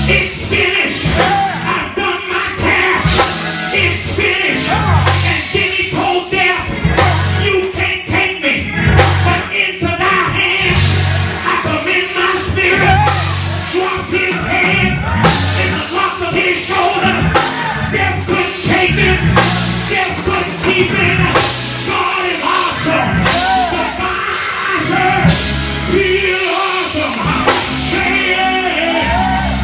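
Live church band music with drums and bass, and a man's voice singing over it through a microphone and PA.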